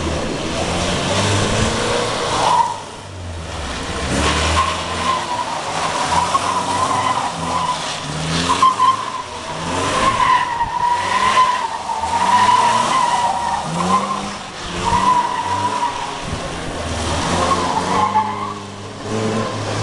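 Lancia Flavia Coupé 1.8 fuel-injected flat-four engine revving hard in repeated rising surges, with the tyres squealing in long wavering squeals as the car is slid around the cones of a slalom course.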